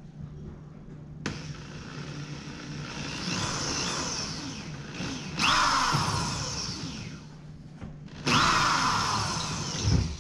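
Electric drill with a hole saw cutting into the steel side of a fuel tank, run in uneven bursts: it starts about a second in, then twice speeds up with a rising whine into louder grinding. The cheap hole saw is giving out and failing to cut.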